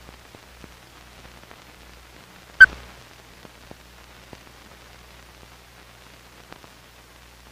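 Old film print's soundtrack running over the countdown leader: faint hiss and low hum with scattered crackles, and one loud pop about two and a half seconds in.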